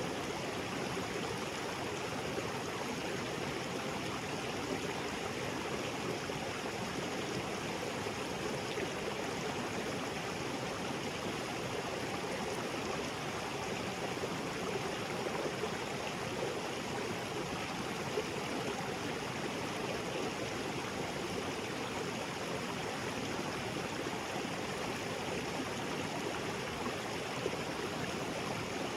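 Small waterfall and creek water splashing and gurgling over rocks, a steady even rush with no changes.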